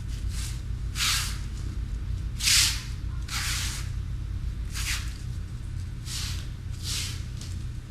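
A hand tool making repeated strokes as it spreads and smooths the final sand coat of Redgard waterproofing membrane over fiberglass mesh, about one stroke a second. A steady low hum runs underneath.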